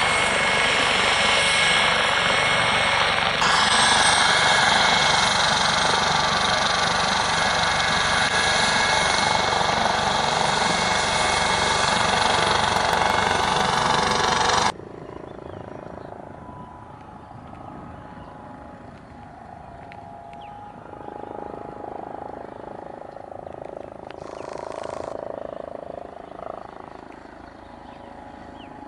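Eurocopter AS565K2 Panther helicopter running close by: loud turbine whine over dense rotor and engine noise, its high whine shifting up in pitch a few seconds in. About fifteen seconds in, the sound cuts off abruptly to a much quieter, fainter background.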